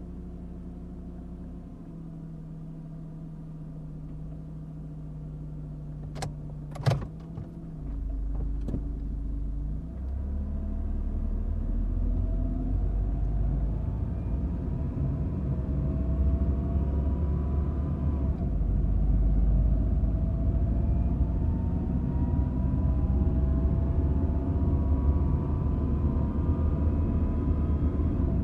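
Honda Accord engine heard from inside the cabin, idling steadily, with a few sharp clicks about six to seven seconds in. The car then accelerates slowly and continuously, the engine getting louder and its pitch climbing gradually, dropping once about two-thirds of the way through and climbing again.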